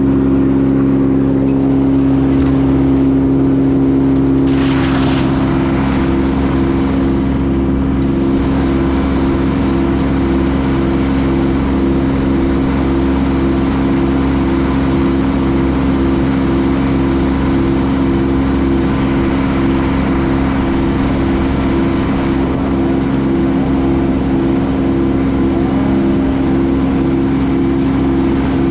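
Heavy machinery engine running steadily at a constant speed. About five seconds in, a low beeping tone starts and repeats a little more than once a second.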